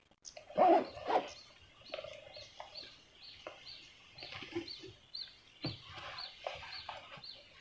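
A bird repeating a short, high chirp over and over, about two a second. Under it are a few knocks and rustles from fishing tackle being handled, the loudest about a second in.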